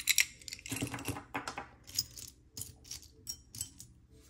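Costume jewelry clinking and rattling as earrings are picked up and set down among a pile of metal and plastic pieces. Sharp clinks come right at the start and again about a second in, then scattered lighter clicks.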